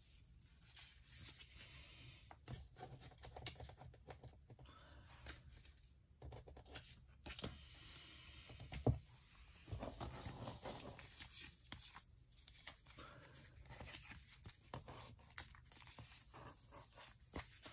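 Pokémon trading cards being slid into plastic card sleeves: faint rustling and crinkling of thin plastic with scattered light clicks, and one sharper tap about nine seconds in.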